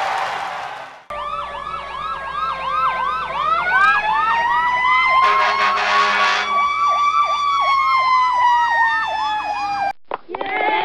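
Emergency-vehicle sirens: a fast yelp sweeping up and down about three times a second, over a slower wail that rises, holds and then slowly falls, with a short horn-like blast around six seconds in. A noisy sound fades out in the first second, and near the end the siren cuts off abruptly and another falling siren tone starts.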